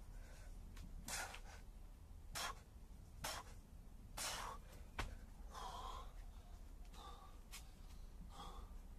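A man panting hard during burpees, with quick, loud gasping breaths about once a second. About five seconds in there is one sharp tap.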